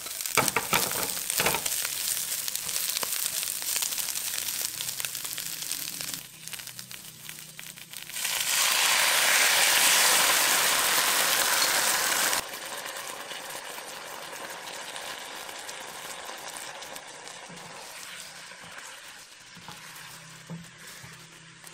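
Chinese cabbage stir-frying in a hot nonstick wok, sizzling, with clicks of a spatula stirring against the pan. About eight seconds in, the sizzle turns much louder and brighter for about four seconds as dark soy-based sauce hits the hot pan, then drops back and slowly fades as glass noodles are mixed in.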